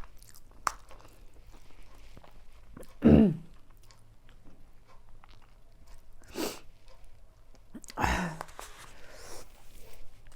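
A person eating spicy noodles, with soft chewing throughout. About three seconds in there is a short vocal sound that falls in pitch, and there are short breathy noises around six and a half and eight seconds.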